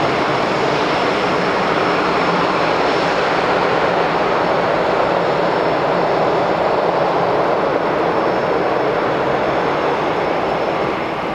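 Airbus A380-800's four Rolls-Royce Trent 900 turbofans at takeoff power on departure: loud, steady jet noise that eases slightly near the end.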